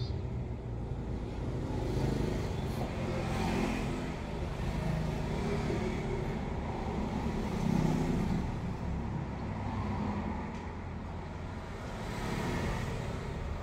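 Low rumble of road traffic, swelling and fading a few times.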